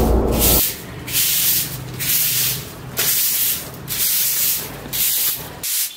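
Short hand broom sweeping a concrete floor in repeated strokes, about one swish a second. Background music cuts off about half a second in.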